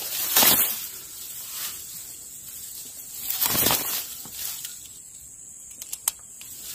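Tall dry grass rustling and swishing in a few bursts as someone moves and bends in it, with a few quick sharp clicks about six seconds in.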